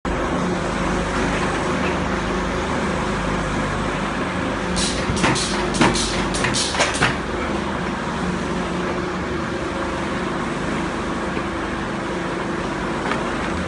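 Filter press with its automatic plate shifter running, a steady machine hum with a few held tones. About five seconds in comes a quick run of sharp clacks as the plastic filter plates knock against each other.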